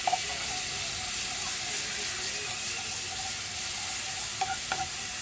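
Garlic paste and olive oil sizzling in a hot pan: a steady hiss, with a couple of small ticks near the end.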